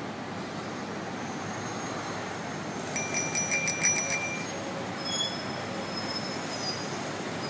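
Bicycle bell on the handlebar rung rapidly for about a second, a bright metallic ringing about three seconds in, over a steady background hiss.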